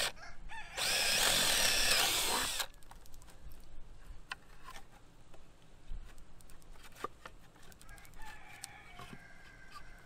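Cordless drill boring a hole through a cedar board, running for about two seconds with its pitch wavering as the bit cuts. Then light clicks and taps as the drill is set down and a rod is handled.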